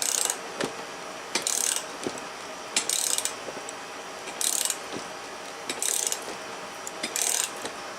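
Ratchet wrench turning a pitman arm puller's forcing screw in short clicking strokes, about one every second and a half, against a pitman arm seized tight on the steering box shaft.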